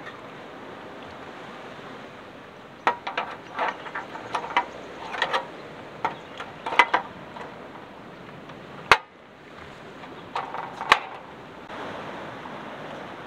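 Metal clicks and knocks of a butane gas canister being handled in the canister bay of a portable cassette gas stove, a run of light taps followed by a single sharp click about nine seconds in and another near eleven seconds, over a steady hiss. Near the end, a slightly louder steady rush of surf.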